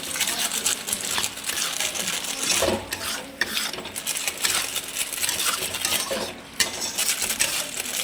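Spoon stirring vegetables in a metal cooking pot, with irregular scraping and clinks of metal on metal, over a faint steady hum.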